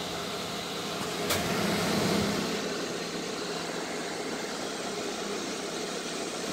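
RV bathroom roof-vent exhaust fan running: a steady airy whir from the blade with a low, constant hum from the motor. A single sharp click comes about a second in, and the sound is a little louder for a second or so after it.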